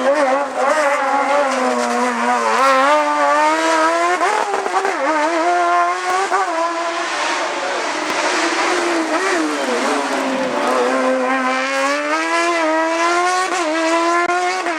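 A hillclimb race car's engine pulls hard with its pitch climbing. It drops sharply with quick throttle blips on downshifts into corners about a third of the way in and again past the middle, then climbs through the revs again.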